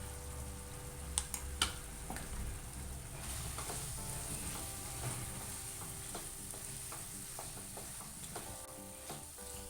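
Chicken with ground pepper masala sizzling in a pan as it is stirred, with the spatula clicking and scraping against the pan, two sharp clicks a little over a second in. Soft background music plays underneath.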